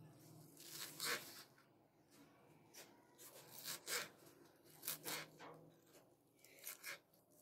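Knife chopping fresh fenugreek leaves coarsely on a wooden cutting board: faint, irregular cuts, mostly in quick pairs spaced about a second apart.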